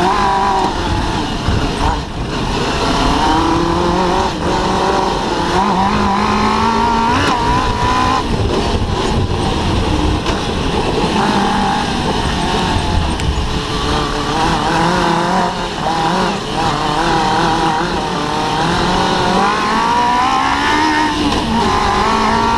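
Suzuki GSX-R 600 inline-four motorcycle engine driving an off-road buggy, its revs rising and falling as the throttle is worked over rough grass, over a low rumble.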